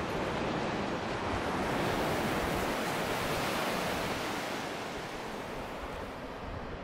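Baltic Sea surf washing onto a sandy shore: a steady rushing that swells about two seconds in and eases toward the end, with wind buffeting the microphone.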